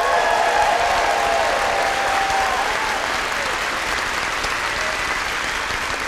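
An audience applauding steadily at the end of a talk, slowly fading. A few voices cheer over it in the first three seconds.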